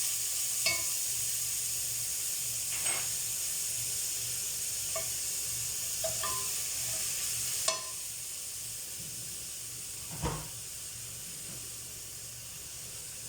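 Garlic and onions sizzling in hot oil in a pan, a steady hiss, with about half a dozen short knocks and scrapes of a utensil stirring them against the pan.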